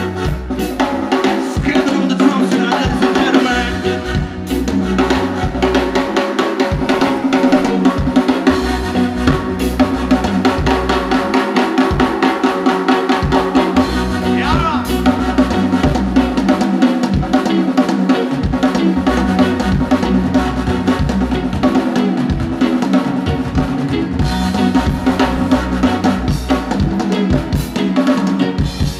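Music with a steady drum-kit and bass beat.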